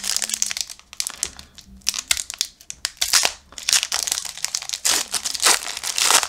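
Foil wrapper of a Parkhurst 2020-21 hockey card pack being torn open at its crimped end and pulled apart by hand, crinkling in dense, irregular crackles.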